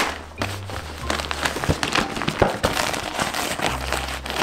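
Plastic wrapping and cardboard packaging being handled and pulled open: a dense run of crinkles and small crackles.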